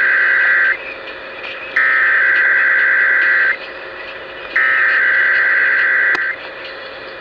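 Emergency Alert System SAME header data bursts heard over broadcast radio: a harsh, buzzing digital warble sent in three identical bursts, the tail of the first and then two full bursts about a second apart, marking the start of the Required Monthly Test. A steady hum and radio noise lie underneath.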